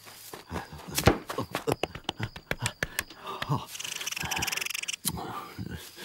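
Cartoon sound effects: a quick run of irregular knocks and clatters for about three seconds, then a hissing rustle with short wordless grunts and mumbles from a man's voice.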